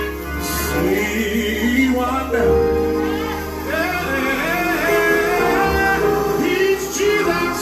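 Live gospel music: a singer holds drawn-out, wordless sung lines over a band with a steady bass and guitar.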